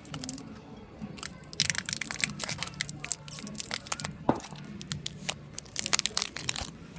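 Crackling and crunching of candy and its wrapper being handled and eaten right at the microphone, in two bursts of sharp crackles, about two seconds in and near the end.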